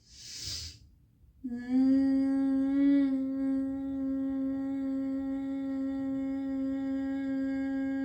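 A woman takes a short hissing breath in, then from about a second and a half in hums one long steady low note on the exhale: the bee-like hum of bhramari pranayama.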